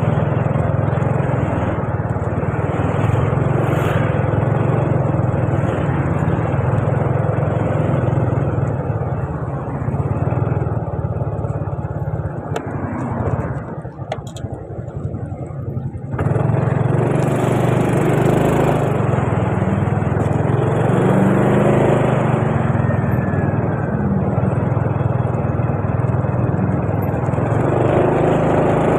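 Motor scooter running while riding in traffic, with wind rushing over the microphone. About halfway through, the sound drops as the scooter slows right behind a car, then it rises again as the scooter pulls away.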